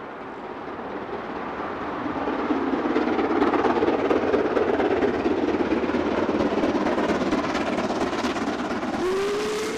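An OO-scale-style model train with a DCC sound decoder running on the layout, its sound growing louder over the first few seconds and then holding steady. About nine seconds in, a short horn or whistle call slides up in pitch and holds.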